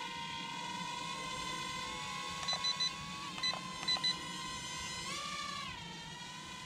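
F31G toy quadcopter's small motors and propellers whining at a steady pitch in flight, the pitch rising briefly about five seconds in and then settling back. Short electronic beeps sound over it: three quick ones about two and a half seconds in, then three more over the next second and a half.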